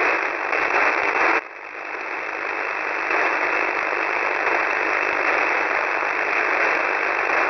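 Shortwave radio static: a steady hiss from a receiver in single-sideband mode tuned to 4310 kHz, with no signal yet. About a second and a half in the noise drops out sharply, then swells back over the next second.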